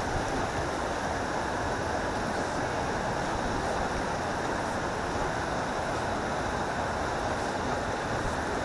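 Steady rushing of flowing water in a small canal, an even unbroken wash.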